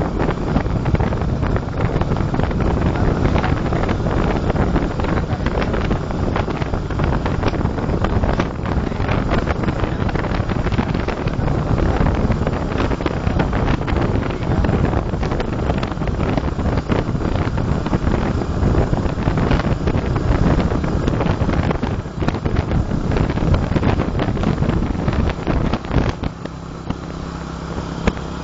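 Motorcycle riding along a road, its engine running under heavy wind buffeting on the microphone. About two seconds before the end the wind drops and the engine's steady low hum comes through more plainly.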